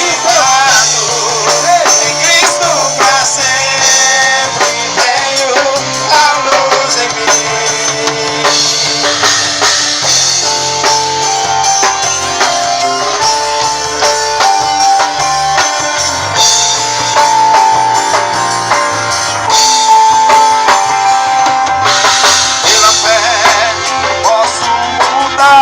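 Christian worship band playing with drums, guitar and a singing voice. In the middle the voice drops out while a lead instrument plays long held notes, and the singing comes back near the end.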